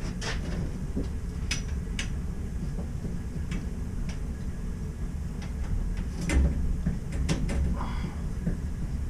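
Scattered light clicks and knocks of work handling, with a louder knock about six seconds in, over a steady low rumble.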